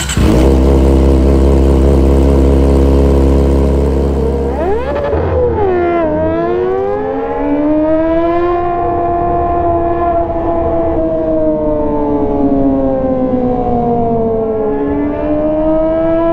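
A loud steady low drone for about the first four seconds. Then a Kawasaki ZX-25R's 249 cc inline-four, straight-piped through a GP exhaust, howls at high revs, its pitch climbing, holding and falling with the throttle, and rising again near the end.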